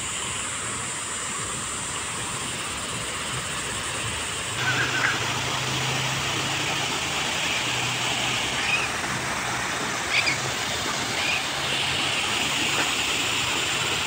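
Small man-made waterfall splashing steadily down over rocks, louder from about four and a half seconds in.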